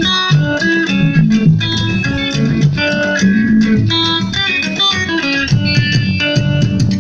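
Live band playing an upbeat dance tune, a busy electric guitar line of quick picked notes over bass guitar.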